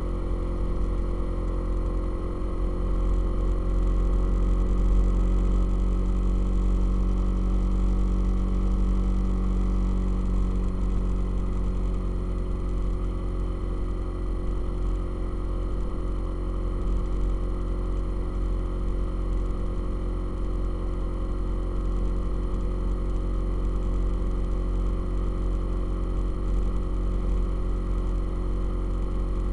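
Motorcycle engine running steadily on the road, heard from on the bike, swelling a little a few seconds in.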